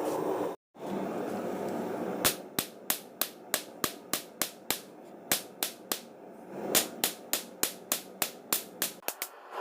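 A steady rushing noise for the first couple of seconds, broken by a brief gap, then a hand hammer striking steel on an anvil about three times a second, each blow sharp with a short metallic ring: forging leaf-spring steel into a cleaver blade.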